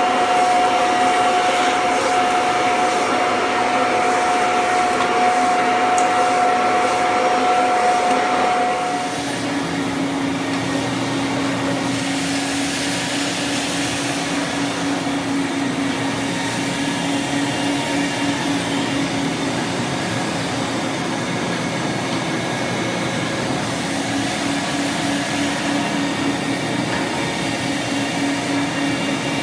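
Carpet-cleaning machine's suction motor running steadily with a whine, which drops to a lower pitch about nine seconds in.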